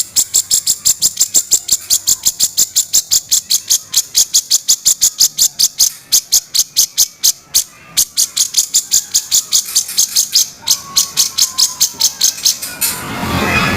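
Cucak jenggot bulbul giving a long run of short, high, rough notes, evenly spaced at about five a second, with a brief break a little past the middle: the rough 'kasaran' call used as a training recording for other songbirds.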